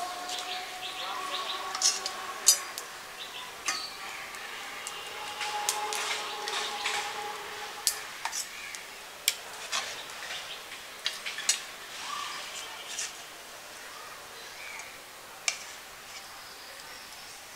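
A pot of fish curry cooking over a wood-fired clay stove: scattered sharp clicks and clinks over a steady hiss, with a metal ladle in the aluminium pot.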